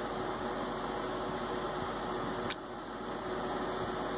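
Steady mechanical hum with a faint constant tone, and one sharp click about two and a half seconds in.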